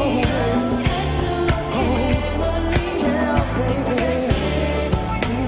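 Live K-pop song from a band: a male lead vocal sung into a headset microphone over a steady drum beat, bass and keyboard.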